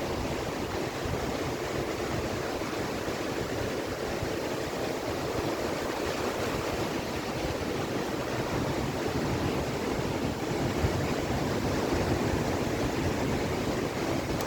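Ocean surf washing onto a beach: a continuous rushing wash of breaking waves, swelling slightly in the second half.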